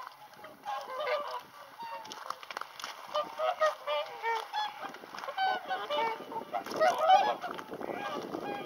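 A flock of whooper swans calling: many short, nasal honks from several birds overlap continuously, the loudest cluster about seven seconds in.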